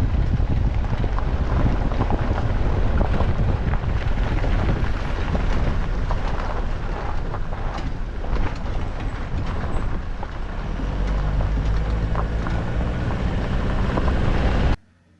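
A vehicle on the move: a loud, steady rumble of road and wind noise, with a low engine hum coming through in the last few seconds. It cuts off suddenly near the end.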